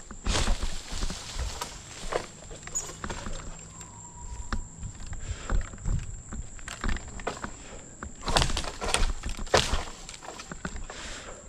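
Manual pole saw working on dead pine limbs: irregular rasping strokes and knocks, with a cluster of louder strokes near the end.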